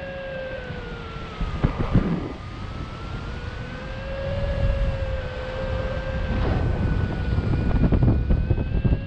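Wind buffeting the microphone in paraglider flight, gusting louder about two seconds in and again near the end. Under it a paragliding variometer gives a continuous electronic sink tone that slowly dips and rises in pitch, the signal that the wing is descending.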